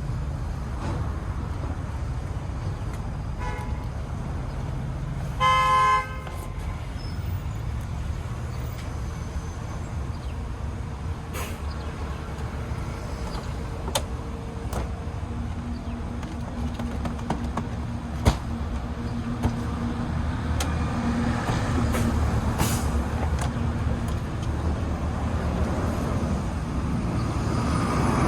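Street traffic running steadily, with a short vehicle horn honk about five seconds in and a fainter toot a couple of seconds before it. A few sharp clicks are scattered through.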